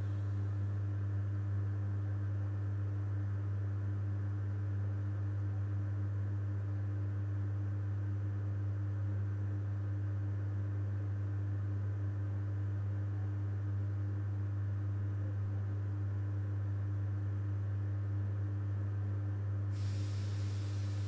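Electric transformer humming steadily: a low mains hum with fainter higher overtones, unchanging throughout. A hiss joins near the end.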